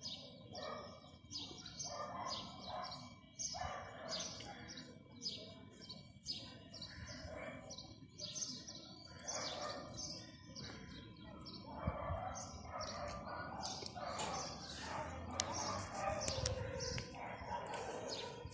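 Birds chirping, short calls repeated about once or twice a second, becoming busier in the last few seconds, over a low steady background.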